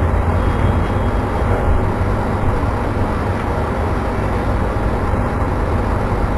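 Steady, loud low rumble with a hiss over it, unbroken throughout: constant background machine and room noise with no distinct events.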